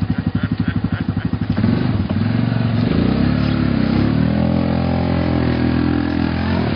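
ATV engine chugging at low revs, then revved hard about a second and a half in. Its pitch rises and falls and holds high while the quad pushes through deep mud.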